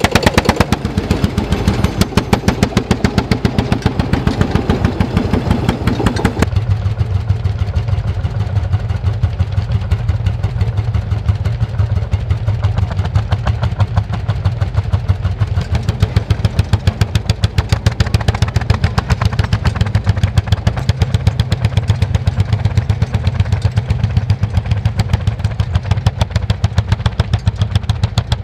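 Single-cylinder hot-bulb two-stroke engines of old Lanz Bulldog tractors working under load while ploughing, a fast, steady thumping beat. The sound changes abruptly about six seconds in, losing its higher tones as a second set of tractors takes over.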